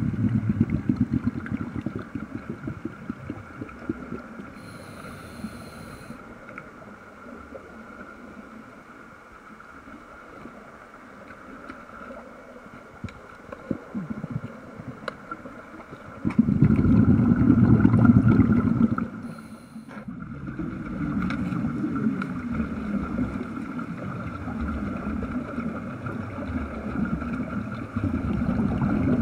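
Underwater recording of air bubbling out of a Mark V diving helmet's exhaust in gurgling surges, with a loud burst a little past halfway. A faint steady tone runs underneath.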